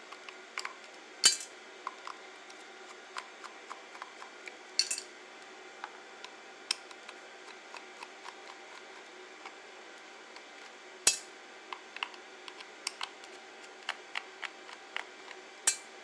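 Small screwdriver clicking and scraping against the screws of a plastic Logitech MX mouse as it is taken apart. There are four sharper clinks of small metal parts striking a bowl, about a second in, near five seconds, near eleven seconds and just before the end.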